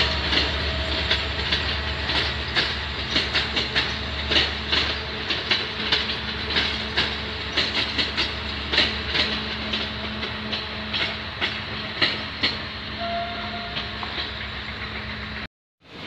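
Passenger train of double-deck coaches rolling past, its wheels clacking regularly over the rail joints over a steady low hum. The clacks thin out near the end.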